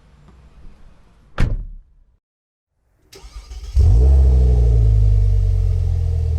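A car engine revs up about three seconds in, then runs steadily at a loud, low drone. It is preceded by a sharp knock about a second and a half in.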